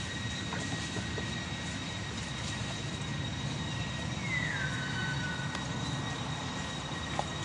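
Steady low background rumble with a constant high whine throughout. About four seconds in, a short tone slides down in pitch and then holds for under a second.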